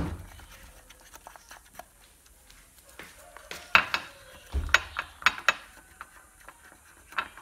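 A utensil stirring a thick egg and cornstarch mixture in a small ceramic bowl, clicking sharply against the bowl in scattered taps, most of them between about three and a half and five and a half seconds in. There is a dull thump at the very start and another about two thirds of the way through.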